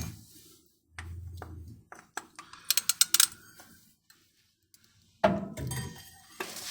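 Oil filter wrench being fitted onto the truck's engine oil filter: scattered metal clinks and clicks, with a quick run of clicks about three seconds in and a duller knock a little after five seconds.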